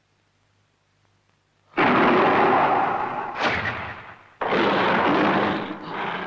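Two sudden, loud explosion-like booms from a 1960s tokusatsu soundtrack. The first comes about two seconds in and fades away; the second comes about four and a half seconds in and holds.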